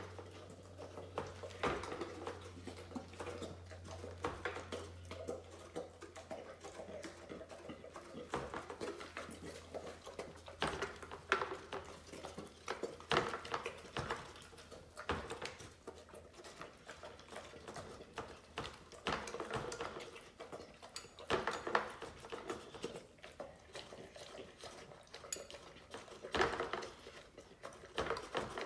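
A pit bull eating from a food bowl: irregular clinks, knocks and clicks of the bowl and food, with no steady rhythm.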